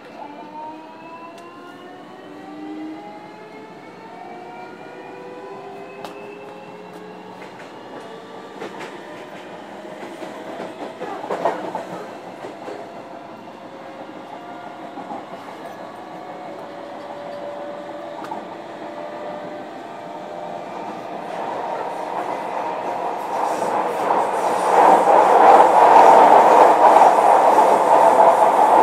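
JR Kyushu 305 series electric train heard from inside motor car MoHa 305-106, accelerating: its inverter and traction motors whine in several tones that rise steadily in pitch over the first ten seconds or so. It then runs on with wheel-on-rail noise and a sharp knock about eleven seconds in. The running noise grows much louder over the last several seconds.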